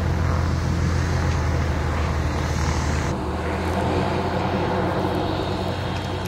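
Zeppelin NT airship's propeller engines running steadily overhead, a continuous low drone. The sound changes abruptly about three seconds in.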